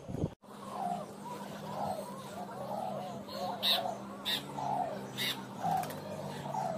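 Feral pigeons cooing: a run of low, wavering coos one after another, with a few short sharp sounds about halfway through.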